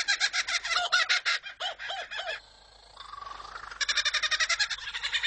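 Kookaburra laughing call: a fast, cackling run of repeated notes. It breaks off for about a second and a half midway, then starts up again.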